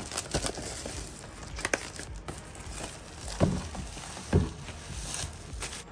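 Thin plastic wrap crinkling and crackling as it is pulled off a cardboard box, with two dull thumps about three and a half and four and a half seconds in.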